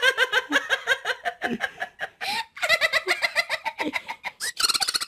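High-pitched giggling laughter, a quick run of short pulses with a brief pause about halfway through.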